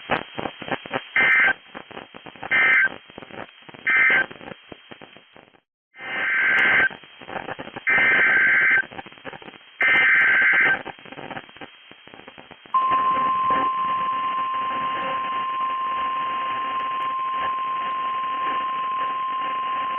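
NOAA Weather Radio Emergency Alert System signals over crackling radio static. First come three short SAME data bursts, the end-of-message code closing one warning. After a brief silence come three longer SAME header bursts announcing the next warning. About 13 seconds in, the steady 1050 Hz warning alarm tone begins and holds.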